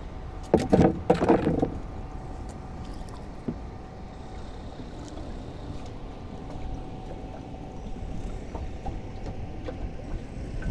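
Longline being hauled hand over hand in a small wooden boat: wind rumbling on the microphone and water against the hull, with a burst of loud knocks and rattles about half a second in, lasting about a second.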